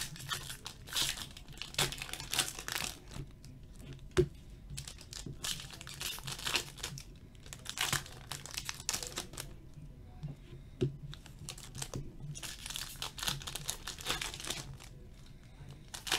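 Foil trading-card pack wrappers being torn open and crinkled by hand, in several separate bursts of ripping and rustling. A couple of sharp taps fall between the bursts.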